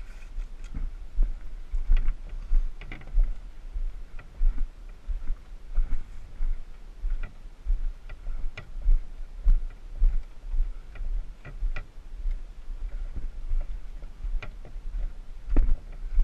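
Irregular clicks and knocks from a canoe carried overturned on the shoulders along a dirt and rock trail: footfalls and the hull and yoke shifting with each step, over a steady low rumble of handling noise.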